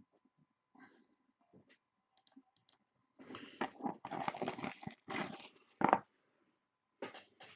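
Hand-handling noises: light scattered clicks, then about three seconds of dense rustling and crinkling that ends in a sharp click, with a few more clicks near the end.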